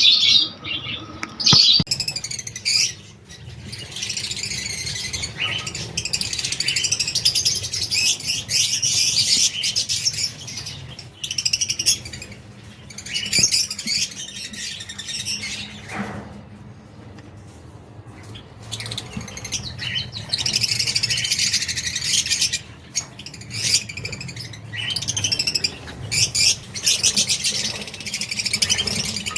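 Baby birds cheeping shrilly, many at once in a dense run of rapid chirps, with a few brief lulls, over a low steady hum.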